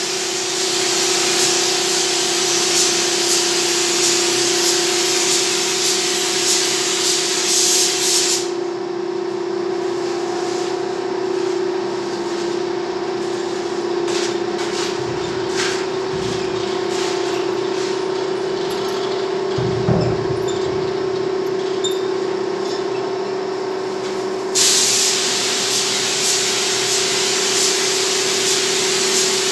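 Compressed-air paint spray gun hissing as it sprays paint onto a CNC-cut MDF panel, over a steady hum. The hiss stops about eight seconds in, leaving the hum and a few light knocks, and resumes near the end.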